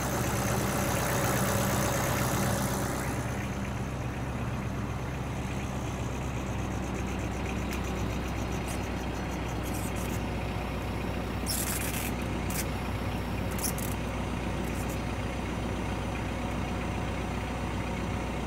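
Tractor engine idling steadily, a little louder for the first few seconds. A few brief clicks sound about two-thirds of the way through.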